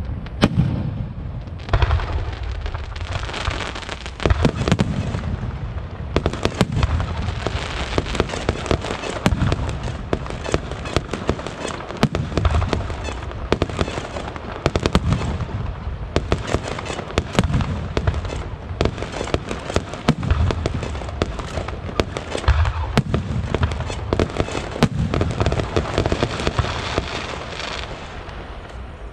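Fireworks going off: dense, continuous crackling with a deep boom every two to three seconds.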